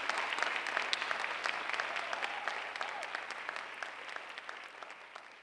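Audience applauding, a dense patter of hand claps that fades away toward the end.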